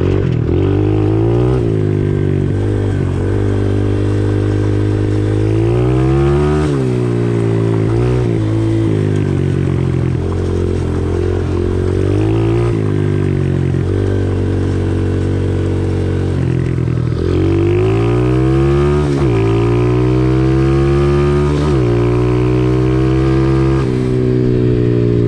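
Small single-cylinder four-stroke engine of an Amigo Rocky 125 mini bike running through an aftermarket pit-bike exhaust under way. Its pitch climbs and falls several times as it accelerates and backs off, with sharper drops and rises a few times.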